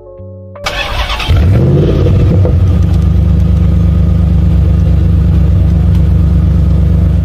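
Car engine starting: a short burst of noise, then the engine catches and its pitch rises briefly before it settles into a steady, loud running hum. The hum cuts off suddenly near the end.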